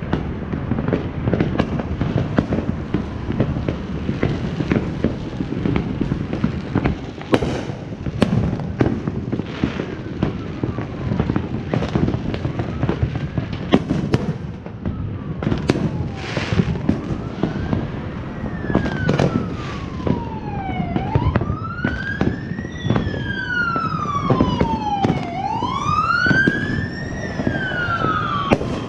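Dense crackling and popping of fireworks going off. In the second half an emergency vehicle's siren wails, rising and falling every couple of seconds and growing louder toward the end.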